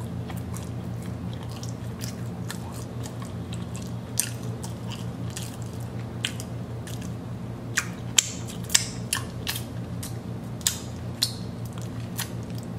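Close-up mouth sounds of a person eating a cinnamon roll: chewing with wet lip-smacking clicks, sharper in the second half, and sucking icing off a finger near the end. A steady low hum runs underneath.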